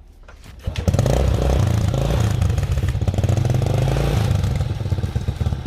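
Honda Supra X 100 single-cylinder four-stroke motorcycle engine starting up about a second in, revving briefly, then settling into a steady idle.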